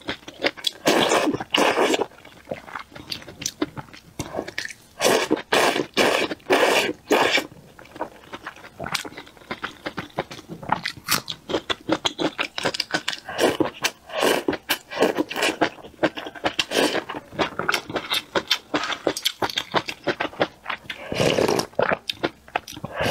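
A person slurping hot potato-starch noodles (tudou fen) from spicy soup and chewing, with several long wet slurps between stretches of smacking, clicking mouth sounds.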